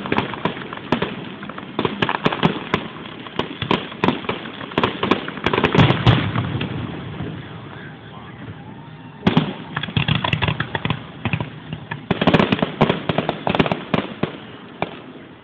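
Aerial fireworks shells bursting in rapid succession with crackling, a quieter spell of about two seconds just past the middle, then more clusters of bangs.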